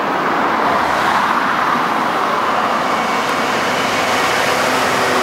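Class 66 diesel-electric locomotive hauling a coal train as it approaches and runs past close by: the drone of its two-stroke V12 engine over the rumble of wheels on the rails, steady and growing slightly louder.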